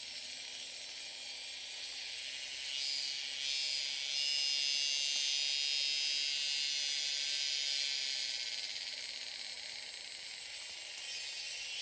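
A high-pitched insect drone, cicada-like, that swells about three seconds in, holds steady, and eases off again near the end.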